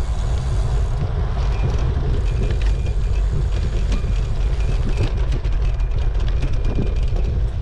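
Wind buffeting the microphone and road rumble from a moving bicycle: a steady, loud low rushing with scattered light ticks.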